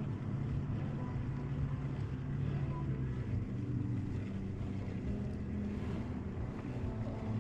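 Motorboat engine running steadily, a continuous low hum.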